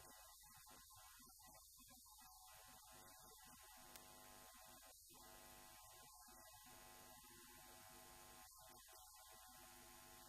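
Near silence: a faint, steady electrical mains hum with hiss, and a single tick about four seconds in.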